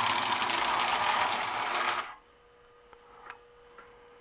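Marx toy electric locomotive running on three-rail O-27 track with a dense, steady mechanical whirring. It cuts out suddenly about halfway through, leaving near silence with a faint steady hum and a couple of small clicks.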